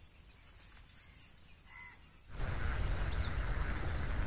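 Faint outdoor ambience with a couple of distant bird calls. For the first two seconds there is a thin, high steady tone. Then the sound jumps louder to a low rumble, with a short chirp about three seconds in.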